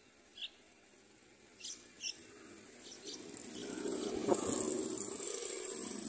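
Yellow-vented bulbul nestlings begging at the nest: a few short high squeaks, then about three seconds in a longer run of thin, high begging calls over rustling of twigs and leaves, with one sharp click midway.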